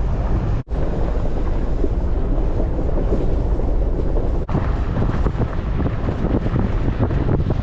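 A vehicle driving along a forest road: a steady low rumble mixed with wind noise on the microphone, breaking off for an instant twice.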